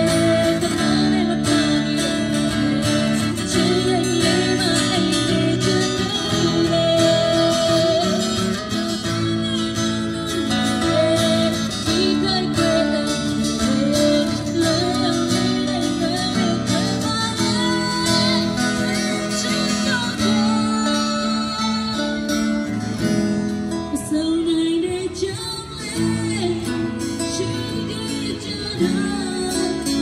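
Live acoustic music: two acoustic guitars strummed and picked while a woman sings into a microphone, amplified through a PA loudspeaker.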